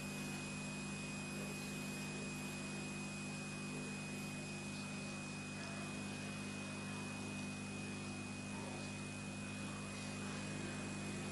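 Faint steady electrical hum and hiss, with a thin high-pitched tone held above it; no voices.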